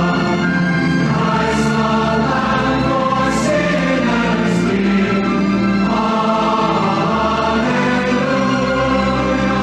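Large choir singing a hymn in full voice over held low accompaniment, with crisp 's' sounds cutting through a few times.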